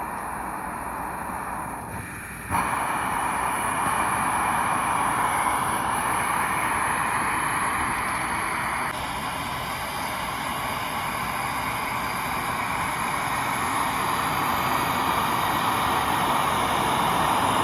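Takei 301 kerosene pressure burner burning with a steady rushing noise, stepping up louder about two and a half seconds in.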